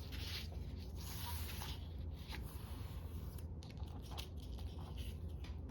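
Soft rustling and crinkling of craft materials being handled and pressed together by hand, a scatter of short brushes and scrapes over a steady low hum.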